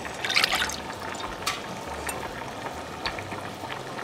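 Thin noodle sauce poured from a blender jar into a hot pan, splashing loudest about half a second in, then sizzling and bubbling as it starts to heat. There are a couple of light clicks along the way.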